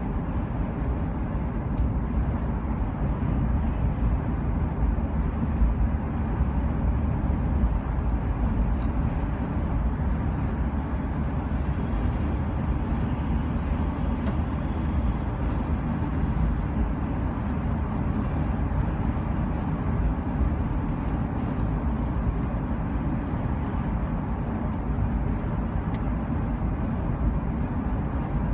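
Steady low rumbling noise, even throughout.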